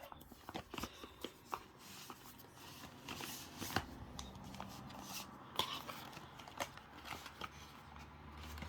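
Packaging being handled and opened: crinkling and rustling with scattered sharp clicks and taps.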